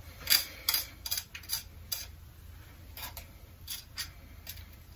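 About ten light, sharp clicks and taps, spaced irregularly, over a faint steady low hum.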